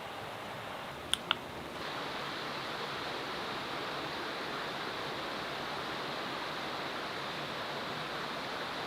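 Steady rushing noise throughout, with two sharp clicks about a second in and a slight step up in level shortly after.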